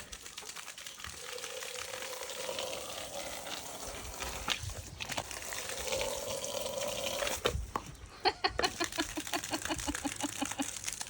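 Water from a garden hose spraying and splashing at the launcher of a water-powered toy rocket. There are a couple of sharp knocks about two-thirds of the way in, then a fast regular pulsing near the end.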